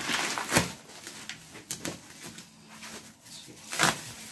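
Plastic packaging and bubble wrap crinkling and rustling as a parcel is unwrapped by hand, with louder rustles about half a second in and again near the end.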